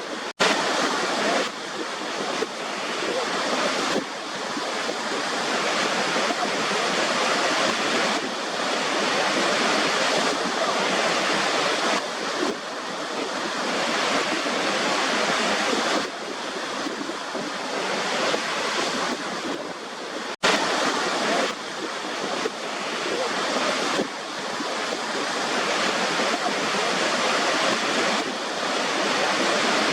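Continuous rushing surf noise that swells and eases gently. It drops out for an instant about half a second in and again about twenty seconds in.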